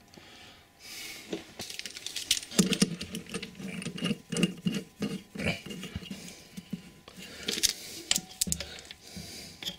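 Irregular small clicks, taps and rattles of a braided stainless-steel toilet supply line's metal nut being handled and fitted onto a shutoff valve.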